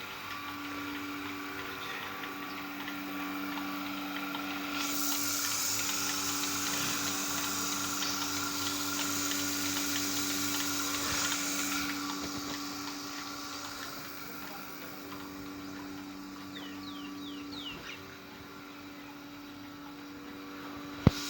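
A steady machine hum with a fixed pitch. A hissing noise joins it from about five seconds in and fades out about twelve seconds in.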